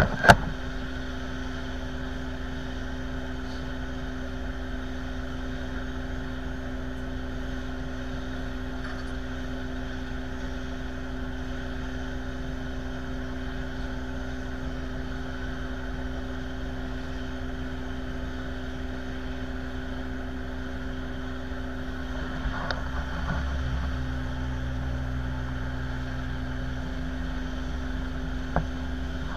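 Steady engine drone on an airport ramp, with a constant hum and a low rumble that grows louder for a few seconds about three-quarters of the way through. A sharp click comes just after the start and another near the end.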